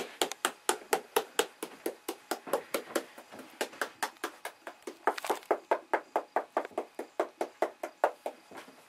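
A hand rapidly and evenly tapping the back of an iPad, about six knocks a second. This is the 'slap the back' trick for an iPad red-lines screen fault, which the owner takes for a loose chip inside.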